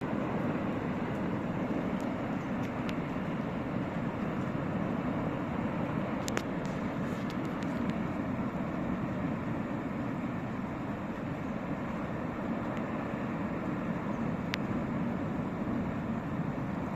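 Mountain stream in flood, a steady rushing torrent of water and debris, with a few faint sharp clicks over it.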